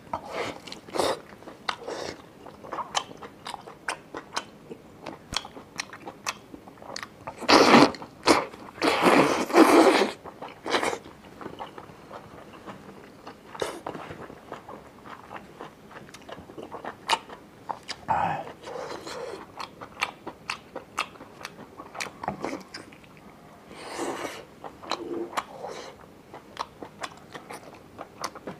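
Close-miked eating of spicy octopus: wet biting and chewing with many short clicks and smacks, and a few louder stretches around a third of the way in.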